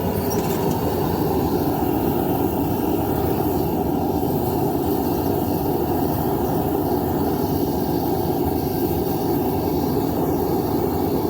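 Burner of a Devil Forge 10 kg propane melting furnace running at full burn, a steady rushing noise that holds even throughout, while it heats a crucible charge of scrap aluminum to melting.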